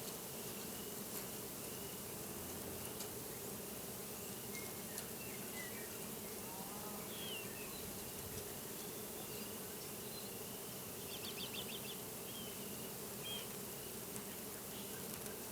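Steady buzzing hum of flying insects, with scattered short songbird chirps and trills over it.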